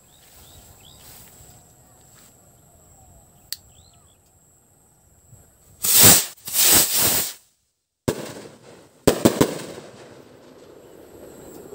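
A small kwitis bottle rocket with a silver titanium spark tail launching about six seconds in with a loud rushing hiss. About three seconds later it explodes in the air: a sharp bang followed by a couple of quick cracks that fade away.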